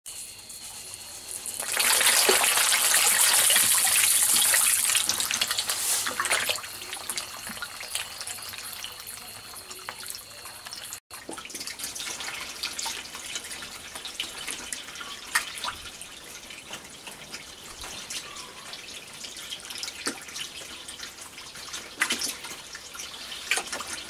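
Water from a hose pouring into a fish tank. It splashes loudly for about three seconds starting near two seconds in, then dies down to a quieter trickle with scattered drips and small splashes.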